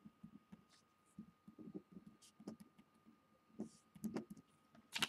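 Faint scratches of a marker writing on paper, with soft bumps of the hand against the page and a faint steady high hum underneath. Right at the end a louder rustle of the paper being handled.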